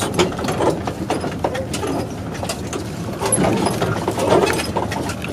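A 4x4 van's body and suspension creaking, squeaking and knocking as it crawls over a rough, rutted dirt trail, with a run of louder creaks three to four seconds in. The squeaks come from dry, unlubricated joints that have never seen WD-40.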